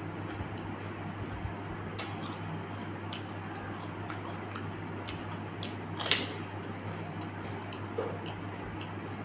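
Eating panipuri: chewing and small clicking crunches of the crisp puri shells, with one louder crack about six seconds in, over a steady low hum.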